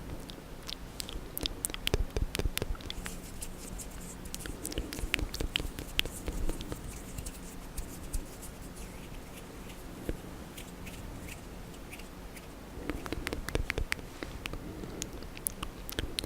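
Close-miked wet mouth sounds: tongue clicks, lip smacks and licking in irregular clusters, thinning out in the middle and growing busier again near the end.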